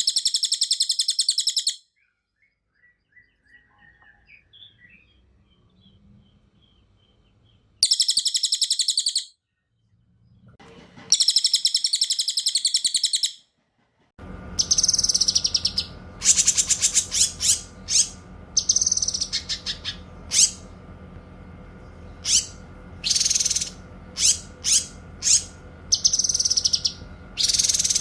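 Caged songbirds singing, cililin and cucak kinoy: three long, very fast, high rolling trills with gaps between them. About halfway in, a different recording starts, with many short sharp chirps and bursts of song over a steady background hum.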